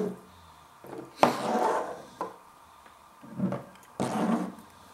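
Glass sauce bottle being picked up and handled on a table: a few separate knocks and rubs about a second apart.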